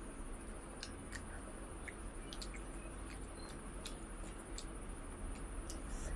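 Faint, irregular wet mouth clicks and smacks of a person chewing food, about one or two a second.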